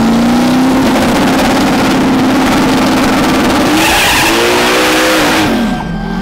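Car engine held at high revs with loud tire squeal and skidding noise, as in a burnout. About four seconds in the revs climb and fall sharply, then drop back near the end.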